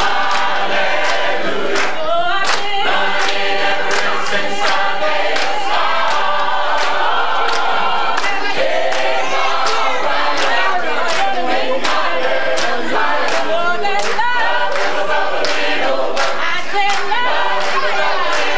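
Gospel choir singing, with hand claps keeping a steady beat.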